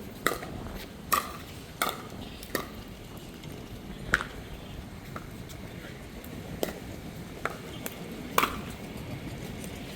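Pickleball rally: paddles striking the plastic ball in sharp, ringing pops. Four hits come in quick succession in the first three seconds, then about four more at wider intervals.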